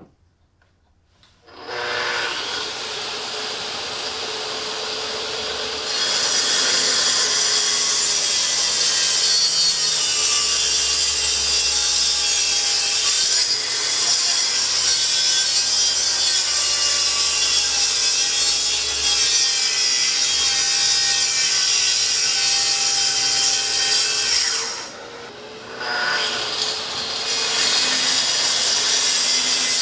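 Makita plunge-cut track saw starting up and cutting lengthwise through a thick live oak slab, running steadily. It gets louder a few seconds after starting, eases off briefly near the end, then cuts on.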